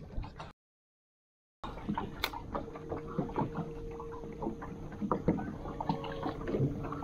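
A boat motor humming steadily while the boat moves slowly, with water lapping and knocking against the hull. The sound cuts out completely for about a second near the start.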